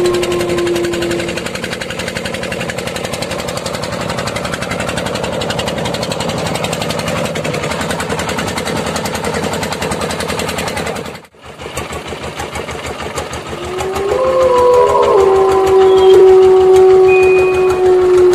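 Small boat's engine running steadily with a fast, even chugging. It cuts out briefly about 11 seconds in, and a long held tone rises over it near the end.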